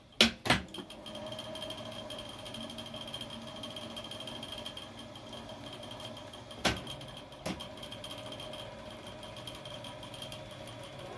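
Piano-key operating buttons of a National (Panasonic) NV-5120 video cartridge recorder clicking: two sharp clunks right at the start and two more a little past halfway. Under them the recorder runs with a steady mechanical noise and a thin steady whine from its rotating motor and rollers.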